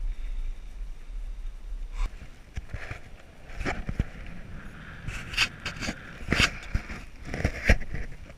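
Bicycle ride heard from a camera mounted on the bike: a low wind rumble on the microphone, giving way about two seconds in to irregular clicks, knocks and rattles as the bike and its load jolt over the road.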